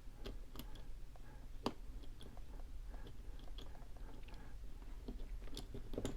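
Dial wheels of a Master Lock combination padlock being turned one by one while the shackle is held under tension: faint, scattered small clicks, a few more close together near the end.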